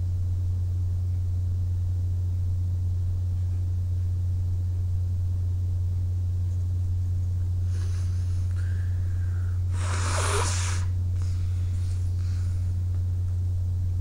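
Forceful blows of air out through the nose: a softer one about eight seconds in with a brief whistly note, the strongest about ten seconds in, then a few weaker ones. A steady low hum runs underneath.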